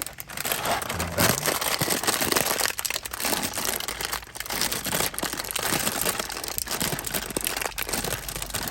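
Packaging of a box of Nabisco Chicken in a Biskit crackers being handled and opened, crinkling steadily.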